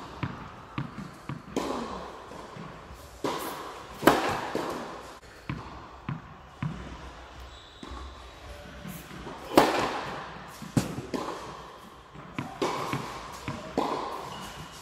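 Tennis ball knocks: bounces on the court and racket strikes, each with a long echo in a large indoor tennis hall. They come irregularly, the loudest about four and nine and a half seconds in.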